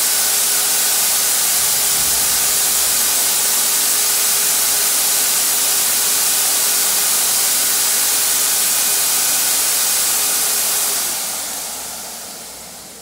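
Harbor Freight entry-level HVLP turbine sprayer (item #44677) blowing a steady rush of air through its hose and gun, with a faint motor hum. About eleven seconds in the turbine is switched off and the air and hum fade away over about two seconds as it winds down.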